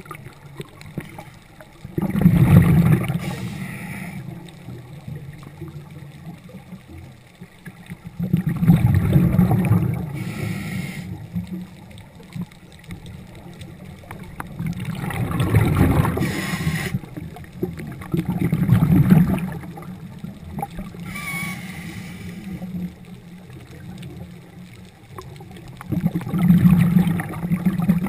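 Diver's scuba regulator underwater: five bubbling bursts of exhaled air a few seconds apart, with quieter hissing between.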